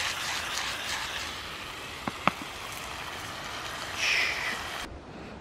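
Seasoned chicken breasts sizzling in a frying pan over a small spirit burner: a steady frying hiss with a few sharp pops about two seconds in. The sizzle swells briefly near the end, then cuts off.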